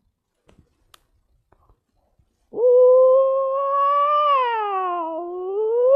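A sound effect that starts suddenly about two and a half seconds in: a long, cat-like pitched wail that holds steady, slides down, then swoops up and down twice.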